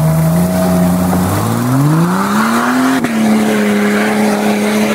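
Jeep Cherokee XJ engine revving hard off-road, its pitch climbing for about two seconds to high revs and then held there. A single sharp click about three seconds in.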